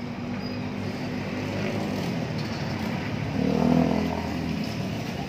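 A motor vehicle engine running with a steady low hum, growing louder about three and a half seconds in and easing off again.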